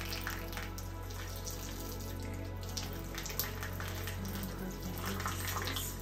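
Tap water running into a bathroom sink, with splashing and wet sloshing as hands wash a soaked cat's fur.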